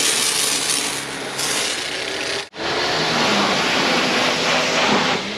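Small pressure washer spraying water in a steady hiss, with a faint hum from its pump underneath; the sound breaks off for an instant about halfway, then carries on.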